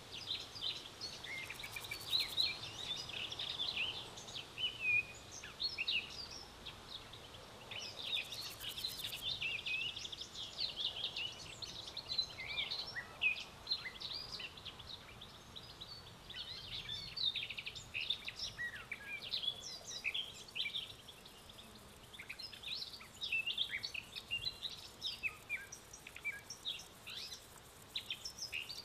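Small songbirds chirping and twittering, a dense run of short, high calls overlapping one another.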